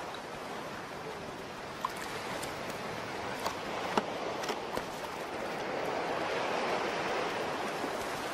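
Surf washing up a sandy beach, a steady hiss of breaking and receding water that swells a little in the second half, with a few faint clicks about two to five seconds in.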